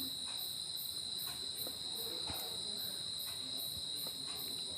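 Insects chirping steadily: a continuous high drone with a faint high pulsing about two times a second, and a few soft ticks.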